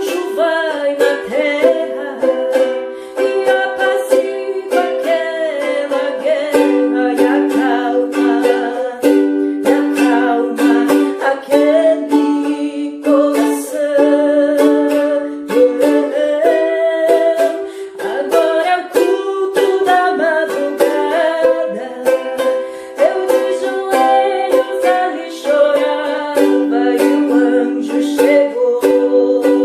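Ukulele strummed in quick, even strokes, playing the chords and tune of a hymn.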